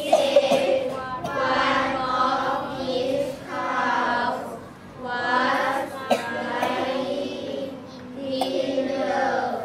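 A class of young children reading an English story passage aloud in unison, many voices speaking together in phrases of one to two seconds with short breaks between.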